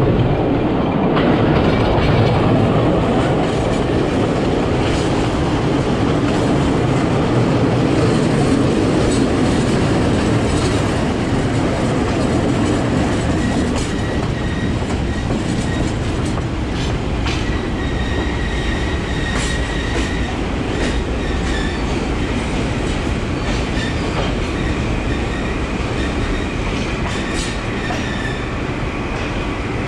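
Passenger train carriage running on the rails, a dense rumble with wheels clicking over rail joints. It eases off as the train slows into a station, with a faint high squeal in the second half.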